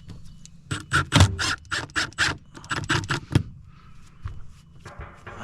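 A quick run of about a dozen sharp knocks or taps, roughly four a second, lasting about three seconds.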